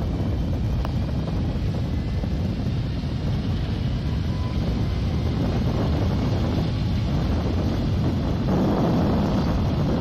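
Thames Clipper river boat's engines running with a steady low drone, mixed with wind and water noise and some wind buffeting on the microphone. It grows a little louder and fuller near the end.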